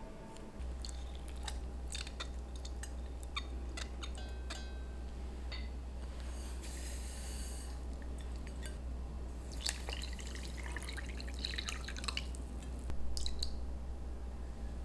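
Small wet kitchen sounds of handling fruit: scattered drips, light clicks and taps, with a short splash of water about seven seconds in and a busier stretch of wet clicking near the end, over a steady low hum.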